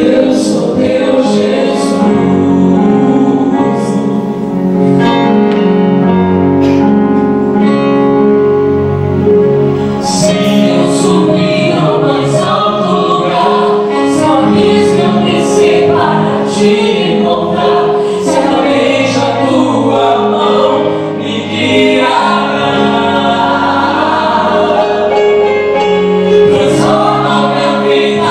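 Vocal group singing a worship song together over instrumental accompaniment.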